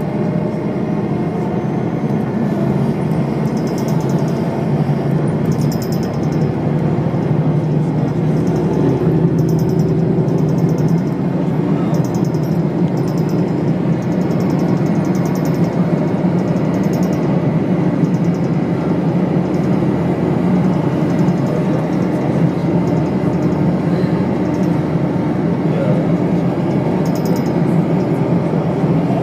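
Cabin sound of a 1997 Steyr SL 12 bus with a Volvo diesel engine on the move: a steady engine drone and road rumble, with short, faint high rattles now and then.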